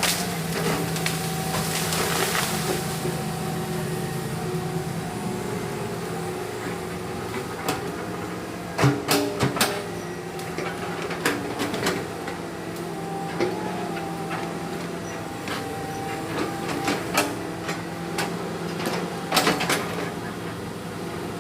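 Excavator's diesel engine running steadily, with a whine from the hydraulics that shifts in pitch as the machine works. Several sharp knocks and clanks come through over it, a cluster about nine seconds in and more near the end, as the machine handles the logs.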